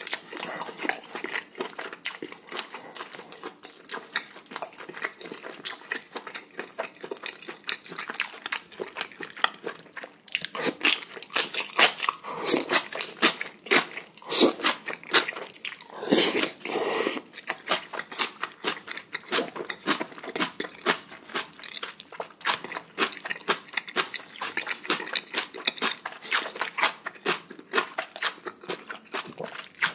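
Close-miked chewing and crunching as a person eats spicy chicken neck meat and knee cartilage with napa kimchi: rapid, sharp crunches and wet mouth clicks, loudest in the middle.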